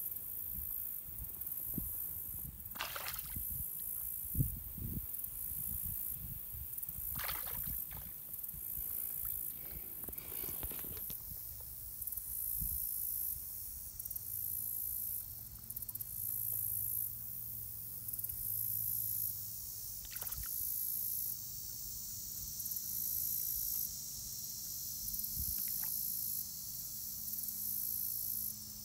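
Pond-bank ambience: a high insect buzz pulsing steadily, low wind rumble on the phone's microphone, and a few short rushing sounds from casting the jig toward the bullfrog.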